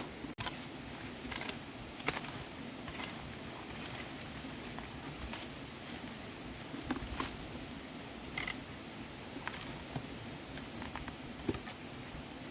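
An insect's steady high-pitched call that stops shortly before the end, with scattered light taps and knocks, the sharpest at the very start.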